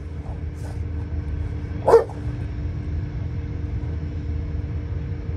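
One short, sharp bark from an American bully dog about two seconds in, over a steady low rumble.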